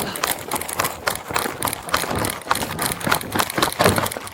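Running footsteps with gear jostling and rattling, picked up close on a body-worn camera during a foot chase: a rapid, uneven run of sharp knocks and clatter.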